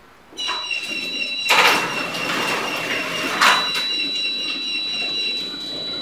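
Electric garage door opener running a heavy wooden sectional garage door down: a steady motor whine with a fast rattle, and two loud clunks about a second and a half and three and a half seconds in.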